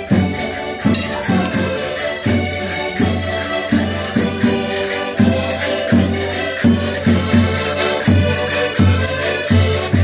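Portuguese folk ensemble of concertinas (button accordions) with cavaquinho, bass drum and castanets playing a vira. Sustained accordion chords run over a steady, regular drum beat and shaken percussion.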